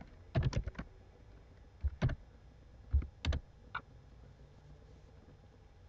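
Typing on a laptop keyboard: a quick run of keystrokes about half a second in, then a few single key presses spread over the next few seconds.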